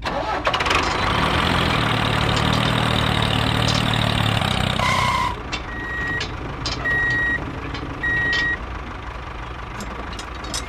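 A vehicle engine running steadily, then a reversing alarm giving three evenly spaced beeps about a second apart as the machine backs up.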